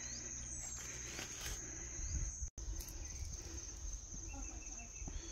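Insects trilling in one steady, high-pitched drone over a low rumble on the microphone, with a brief dropout about halfway and a few faint bird chirps near the end.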